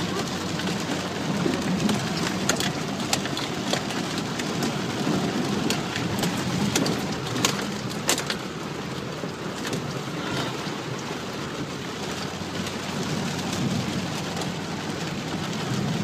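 A vehicle driving slowly over a wet, washed-out dirt road, heard from inside the cabin: tyres crunch and splash through water, mud and gravel in a steady low rumble, with many scattered sharp ticks and knocks from stones and debris.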